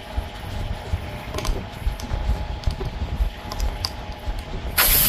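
A few faint clicks of pliers working a nail out of a truck tire's tread, then near the end a sudden loud hiss of air rushing out of the tire as the nail comes free.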